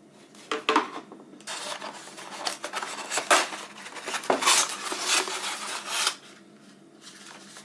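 Packaging being handled and opened during an unboxing: irregular rustling and scraping with sharp clicks, starting about half a second in and stopping about six seconds in.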